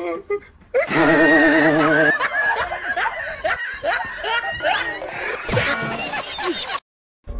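Laughter: wavering, high-pitched giggling and chuckling that cuts off suddenly near the end.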